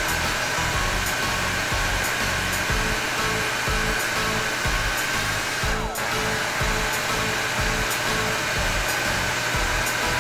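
Mell-chan toy hair dryer whirring steadily, with a brief dip about six seconds in. Background music with a steady beat runs underneath.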